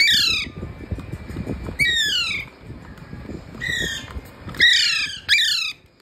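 Alexandrine parakeet giving five loud, harsh squawks over a few seconds, each one falling in pitch.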